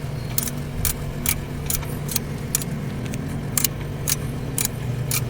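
Socket wrench ratcheting while a bolt on the drive-belt adjuster is tightened: sharp single clicks about twice a second. A steady low hum runs underneath.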